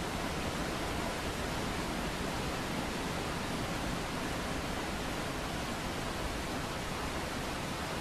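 Mountain waterfall: a steady, unbroken rush of falling water, spread evenly from deep to high with no changes.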